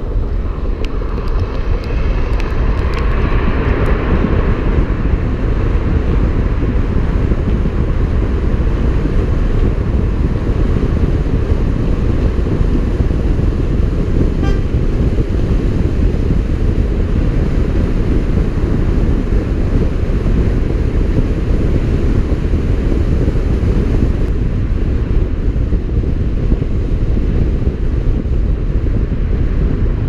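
Car driving at road speed: a steady, loud low rumble of wind buffeting the camera microphone and tyre noise.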